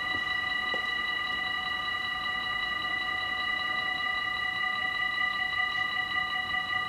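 Dutch automatic half-barrier level-crossing warning bells ringing steadily. Several bells sound at once and blend into one continuous high ringing of a few steady pitches, the signal that the crossing is closed for an approaching train.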